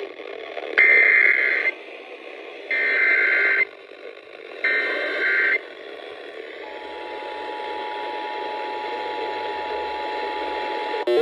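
Three bursts of EAS Specific Area Message Encoding (SAME) header data, each a harsh two-tone digital warble about a second long, with about a second between them, over a steady radio hiss. The bursts mark the start of a new emergency alert.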